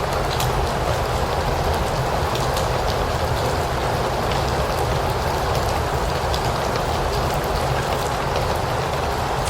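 Steady rain falling: an even hiss with scattered drops ticking on a surface and a low rumble underneath.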